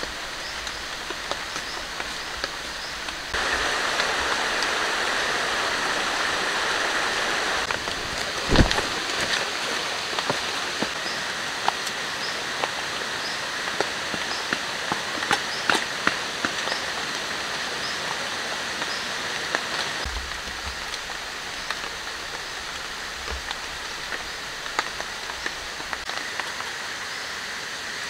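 Steady water noise with scattered drips and small taps. It grows louder for a few seconds from about three seconds in, there is a single thump about eight and a half seconds in, and a faint high chirp repeats at intervals throughout.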